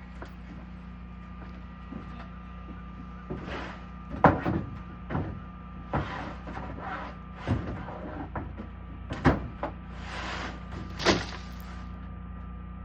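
A series of irregular knocks and thuds, a dozen or so, some with a short scrape, over a steady low hum.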